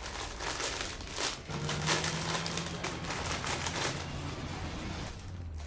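A crisp bag crinkling and crackling as it is pulled open and handled, dying down near the end.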